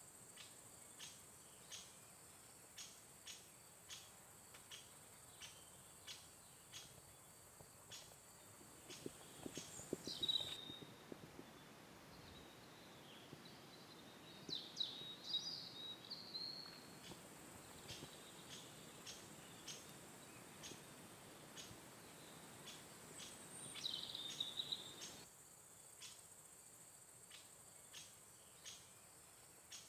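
Faint nature ambience: insect chirps repeating roughly every half second over a steady high hum. The chirping pauses for several seconds in the middle while a bird calls a few times.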